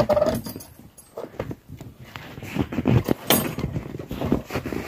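Old wooden plank door being unlatched and pushed open: its metal latch and chain clink and rattle in a string of short knocks and clicks, with a brief creak as it starts to move.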